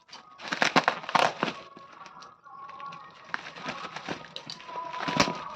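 Packaging of a ring light being handled and unpacked: irregular crinkling and rustling with sharp clicks and cracks.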